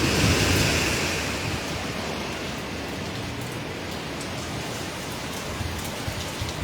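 Hurricane wind and heavy rain: a gust buffeting the microphone dies away over the first second or so, leaving a steady hiss of driving rain.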